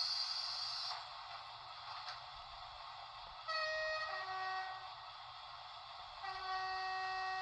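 Model train sound decoder in an Electrotren Renfe 470 playing the train's horn through the model's small speaker. There is a two-note blast about three and a half seconds in, then a longer blast from about six seconds in. A high steady tone cuts off about a second in.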